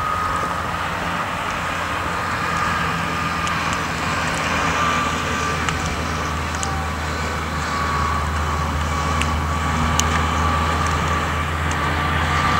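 Steady outdoor background noise: a low rumble under a hiss, with a faint steady high whine and a few faint ticks.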